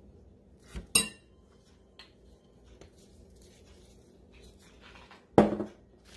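A metal spoon clinks against a ceramic mixing bowl about a second in, with a short bright ring, followed by a faint tap; about five seconds in comes a louder single knock.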